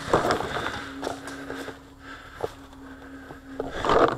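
Rustling and scraping of clothing and gear against a wooden bunker as a paintball player shifts position, with a few faint sharp pops in between. The rustling builds again near the end.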